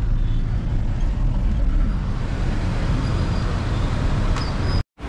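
Road traffic on a city street, with cars passing close by in a steady low rumble. It cuts off abruptly near the end.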